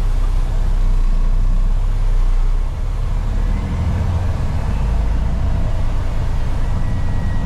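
Case 850K crawler dozer's diesel engine running steadily, a low rumble that dips slightly in loudness a little under three seconds in. A faint thin whine joins it about halfway through.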